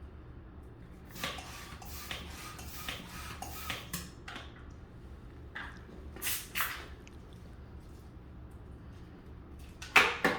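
Scattered short rubbing and hissing noises of latex modelling balloons being handled, louder near the end.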